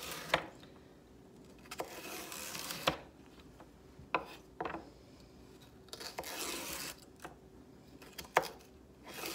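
Kitchen knife cutting celery stalks on a wooden cutting board: a handful of sharp knocks of the blade on the board at irregular intervals, with scraping and rustling between them.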